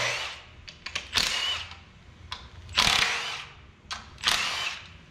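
Cordless electric ratchet spinning bolts out on the cylinder head of a 12-valve Cummins diesel, in four short runs of about half a second each, its motor whirring with a faint whine.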